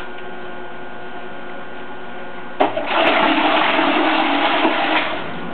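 A MotorGuide electric trolling motor's propeller churns and splashes water in a bucket on its low-speed setting. The loud rushing splash starts abruptly with a click about two and a half seconds in, then cuts off shortly before the end.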